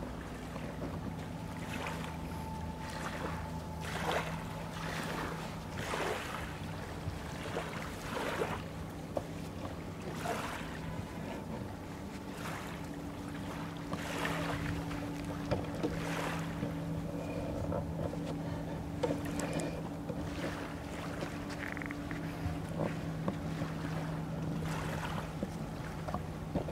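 Steady low hum of a distant ferry's engines carrying across the water, with a second, higher hum coming in about halfway. Small waves lap and splash against the shore at irregular intervals over the top.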